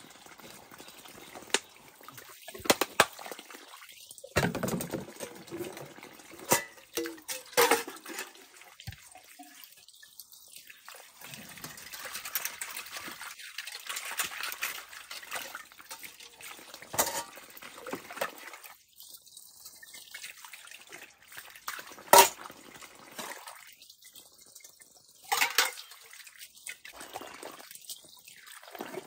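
A small, shallow forest stream trickling and splashing. Irregular sharp knocks and clicks of handling or footsteps sound over it, the loudest a little past two-thirds of the way through.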